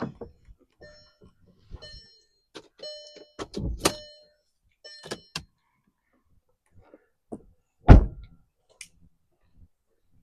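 Scattered light knocks and clinks, several with a brief metallic ring, then one loud heavy thump about eight seconds in.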